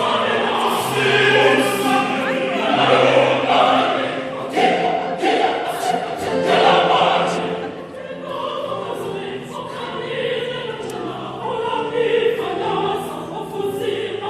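A choir singing in several parts, holding sustained chords. It gets somewhat softer about eight seconds in.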